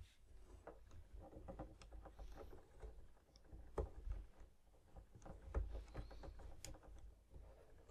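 Faint scratching and small clicks of a thin driver tool turning the screws out of the metal front plate of a Violectric HPA V200 headphone amplifier, with fingers handling the case. A couple of sharper clicks stand out about four and five and a half seconds in.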